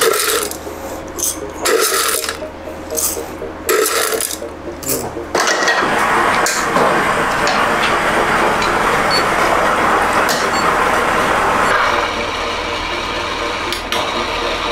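Coffee-making at an espresso bar: a few sharp knocks and clatters, then a coffee machine running steadily for several seconds, a little quieter near the end.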